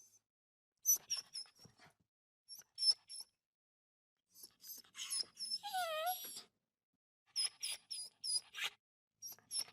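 Dog whimpering and whining, the way a sad dog cries: clusters of short high-pitched whines with pauses between them, and one longer wavering whine about six seconds in.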